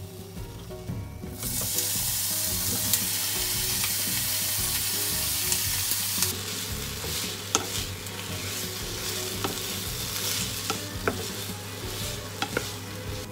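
Sliced onion and bacon sizzling in hot olive oil in a frying pan, stirred with a wooden spatula. The sizzle starts loud about a second and a half in and eases after about six seconds, with scattered clicks of the spatula against the pan.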